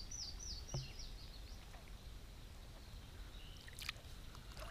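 Faint water sloshing around a hand holding a largemouth bass in shallow pond water. In the first second and a half a bird sings a quick run of about nine high falling notes.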